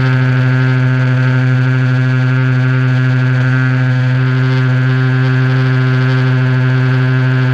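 Small two-stroke petrol engine of an HPI Baja SS 1/5-scale RC car running at a steady, part-throttle speed, its buzzing note held at one pitch throughout.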